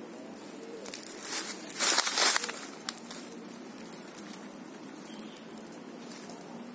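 A brief burst of rustling and crackling in bamboo leaves and dry leaf litter, lasting a little over a second, followed by a single sharp click.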